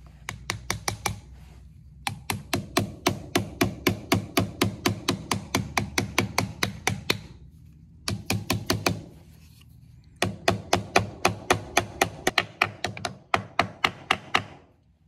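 Ball-peen hammer tapping a new output shaft seal down into a transmission case, quick light taps at about five a second worked around the seal's rim, in four runs with short pauses between.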